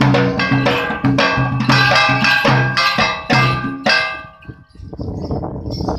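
Percussive folk music for a Danda dance: ringing metal percussion struck about twice a second, which stops about four seconds in.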